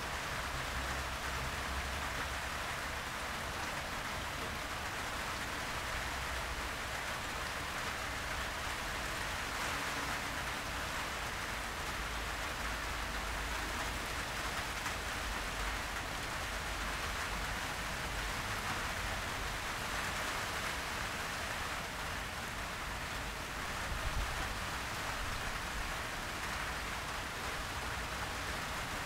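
Heavy rain falling steadily, an even, unbroken hiss of many drops.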